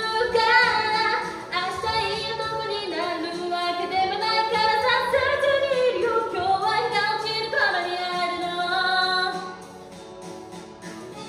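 K-pop song playing, with a female voice singing over the backing track; the music drops noticeably quieter near the end.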